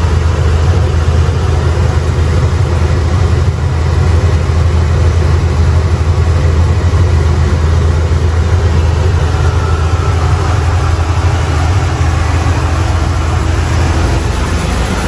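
Coin-operated rice polishing machine running with a steady, loud low hum, milling brown rice into white rice.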